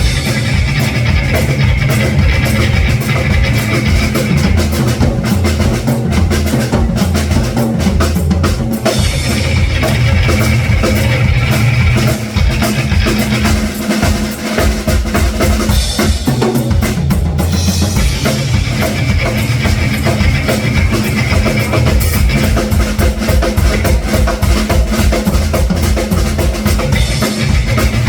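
Live blues band playing, with the drum kit prominent: a steady bass drum and snare beat under bass and guitar.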